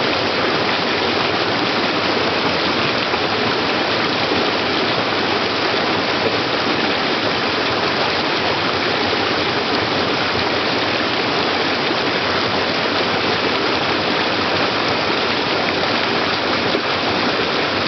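Small waterfall on a rocky stream, water pouring steadily over the rocks into a pool with an even, unbroken rush.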